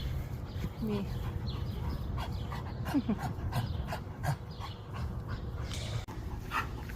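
Dog panting in the heat, with two brief falling whines, about a second and about three seconds in.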